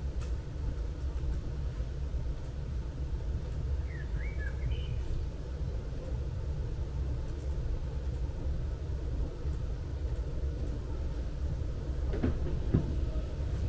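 Steady low outdoor rumble of town ambience, with a short bird chirp about four to five seconds in and a few light knocks near the end.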